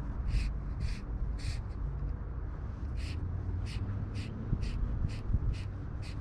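A bird giving a series of short, harsh, high calls, roughly two a second and coming faster later on, over a steady low rush of background noise.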